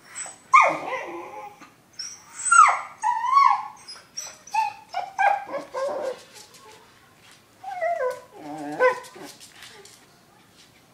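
A timid dog whining and yelping, afraid to take the bone in front of it: a run of high cries that rise and fall in pitch, with short gaps, stopping about two seconds before the end.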